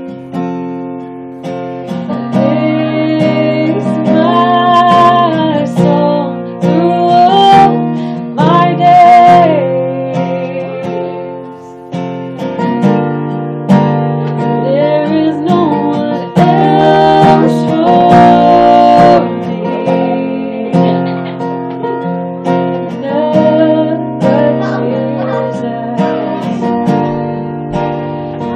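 A woman singing a slow worship song, accompanied by a steel-string acoustic guitar strummed with a capo on the neck.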